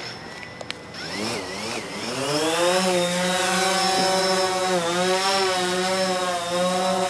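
DJI Phantom 4 quadcopter's motors and propellers spinning up from rest, rising in pitch over a couple of seconds as it lifts off. It then settles into a steady buzzing drone that wavers slightly in pitch as it hovers and moves off.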